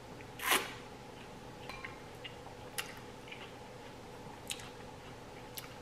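Close-up wet mouth sounds of a person biting and chewing juicy fresh fruit dipped in chocolate: one short loud wet sound about half a second in, then soft, sparse wet clicks.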